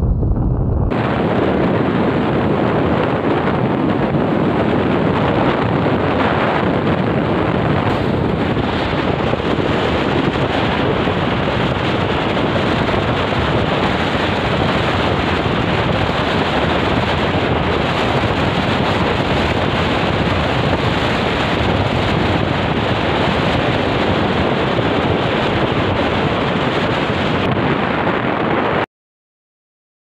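Steady, loud wind rushing over the microphone of a moving motorcycle, mixed with road noise. It starts abruptly and cuts off suddenly near the end.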